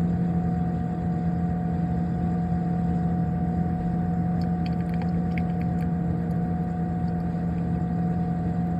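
Refrigerator's compressor and condenser fan running, a steady hum with a low tone and a fainter higher tone, with a few faint ticks about halfway through.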